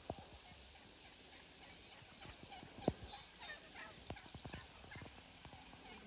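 Merriam's wild turkeys calling in a flock, with gobbling and a run of short calls from about two seconds in. A few sharp knocks stand out, the loudest about three seconds in.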